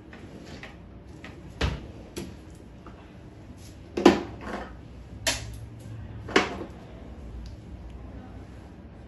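About five short, sharp knocks and clicks at irregular intervals, the loudest about four seconds in, over a faint low hum: objects being handled or set down in a small room.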